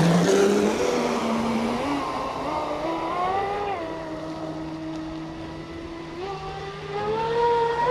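Traxxas Spartan 6S RC speed boat's brushless electric motor whining as it runs on the water, its pitch rising and falling with the throttle. It is loudest right at the start, settles lower through the middle, and climbs again near the end.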